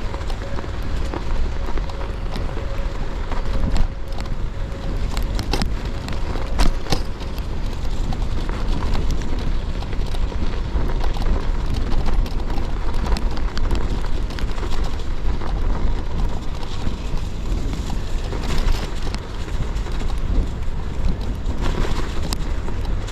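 Gravel bike tyres rolling and crunching over snow and ice, with many irregular crackles and clicks, over a steady low rumble of wind and rolling noise.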